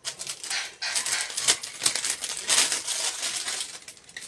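Rustling and clicking of small plastic cosmetic packs being handled and shuffled on a shelf: a busy run of crinkles and light taps.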